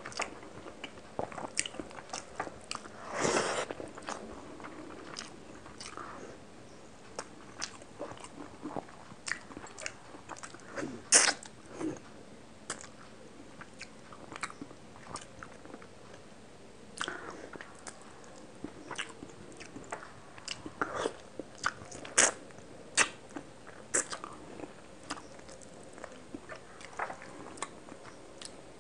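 Close-miked eating of rice and fish curry by hand: chewing and mouth sounds with scattered sharp clicks and smacks, and fingers mixing rice on the plate. A longer noisy stretch about three seconds in.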